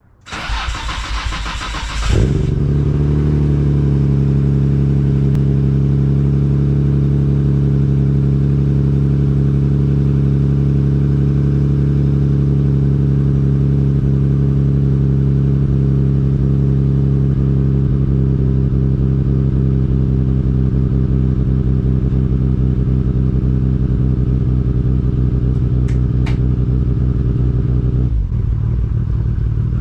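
Nissan Skyline GT-R R32's RB26DETT twin-turbo straight-six cold-starting through a Tomei Expreme Ti titanium exhaust with a Vibrant resonator, heard right at the tailpipe. It cranks briefly and catches about two seconds in, then runs at a steady high cold idle that dips slightly near the end.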